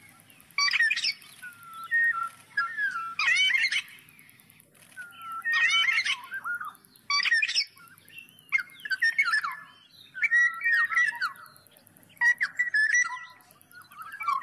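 Black-naped oriole singing: a series of short, fluty whistled phrases with slides in pitch, coming every second or two.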